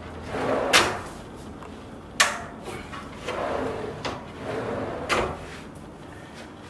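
Wooden drawers sliding in and out on the metal runners of a white oak kitchen cabinet, with three sharp knocks as the drawers seat or shut.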